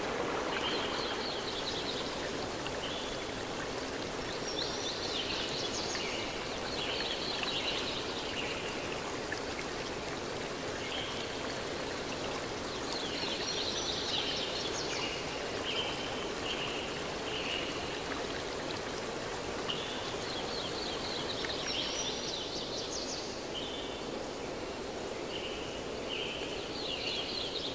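Steady rush of running water, like a stream, with birds chirping in short repeated high phrases that come and go every few seconds.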